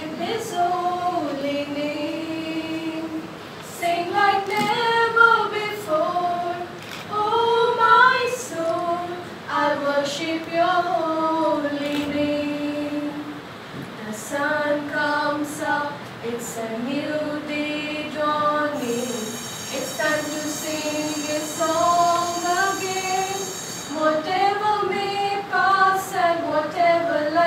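Female voices singing a slow, unaccompanied melody with long held and gliding notes.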